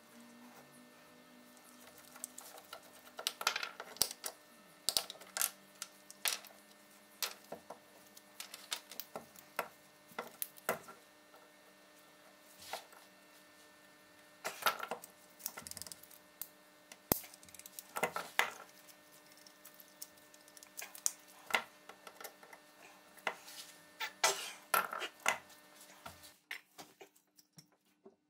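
Rusty antique pepperbox pistol parts and a screwdriver being handled on a wooden bench: scattered metallic clinks, taps and light knocks, in irregular clusters. A faint steady hum runs underneath.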